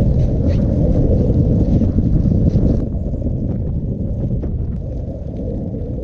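Strong wind buffeting the microphone in a snowstorm: a loud, low rumble that eases a little about three seconds in.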